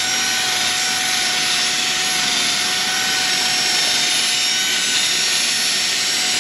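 Milwaukee cordless drill spinning a wire wheel brush against the rusty steering knuckle face, with a steady motor whine over the scratchy hiss of wire bristles scrubbing off rust.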